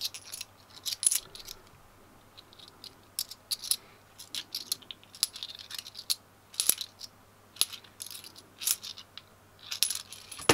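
Bimetallic £2 coins clinking against one another as they are handled and sorted through by hand, a scatter of short, sharp, irregular clinks.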